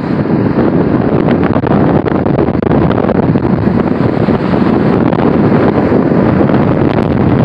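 Wind buffeting the phone's microphone: a loud, steady rumbling noise with faint scattered ticks.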